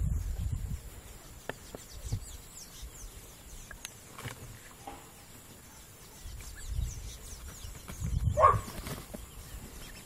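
Muscovy ducks feeding at a grain feeder: a few sharp clicks, faint high chirps and a low irregular rumble, with one short wavering call about eight and a half seconds in.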